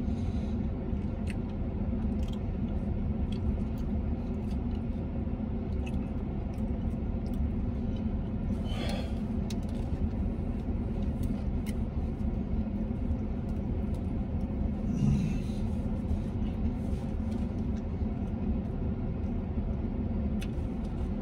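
Steady low rumble of a vehicle's idling engine, heard from inside the cab, with faint scattered clicks of someone chewing a burger.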